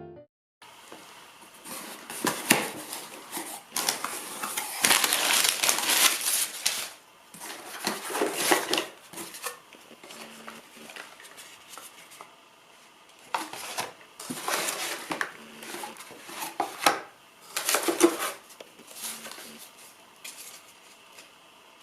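Irregular bursts of rustling and crinkling, like packaging being handled and unwrapped, with a few light clicks and clinks, the loudest stretch about four to seven seconds in and a sharp clatter near the end.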